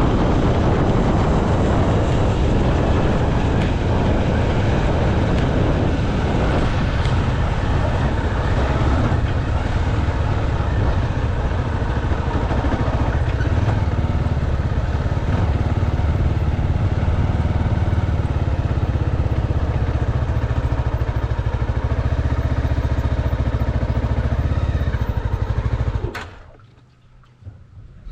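Motorcycle running on the move, a steady low rumble. The sound drops away abruptly near the end.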